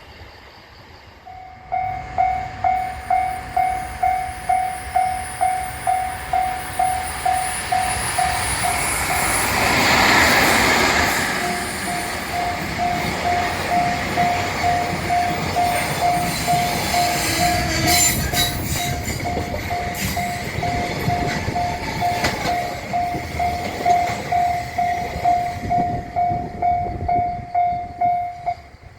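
Japanese level-crossing warning bell ringing its electronic clang at about two strokes a second: it starts a second or two in and cuts off near the end. A train runs through the crossing, loudest about ten seconds in.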